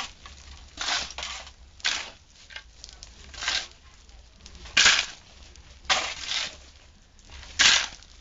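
Shovels scraping into a pile of sand and cement and turning it over by hand, a gritty scrape roughly once a second.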